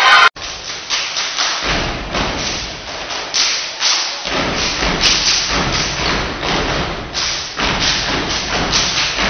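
A step team stomping on a stage floor and clapping and slapping in unison, a fast, even rhythm of sharp thumps, heavier and deeper from about a second and a half in and again near the end.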